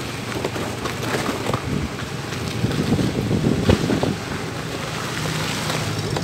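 Wind buffeting the microphone of a phone on a moving Honda Activa 4G scooter, with the scooter's engine and road noise running underneath and a few light knocks.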